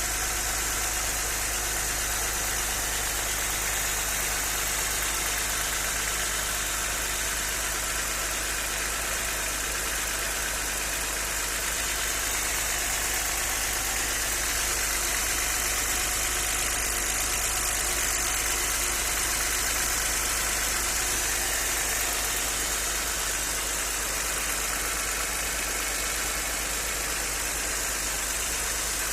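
Audi 100 C4's 2.6-litre ABC V6 engine idling steadily with a knock from the engine, which the owner puts down to hydraulic lifters, spun bearing shells or a connecting rod.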